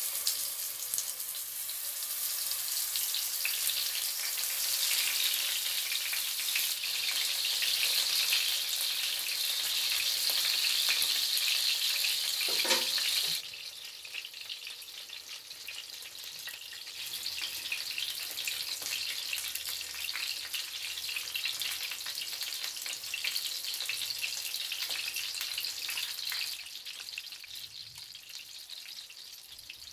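Eggplant slices sizzling and crackling in hot oil in a frying pan. The sizzle drops suddenly to a quieter level about halfway through and keeps going.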